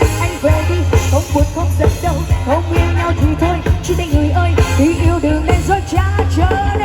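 Vietnamese pop song playing loudly: a sung melody over a heavy, steady bass line.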